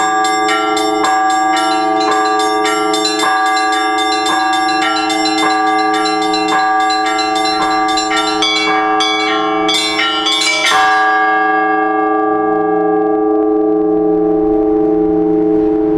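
Orthodox church bells rung together: small bells struck in a steady rhythm over the sustained hum of larger bells. The strikes quicken into a flurry and stop with a last stroke about eleven seconds in, after which the bells hum on, fading slowly.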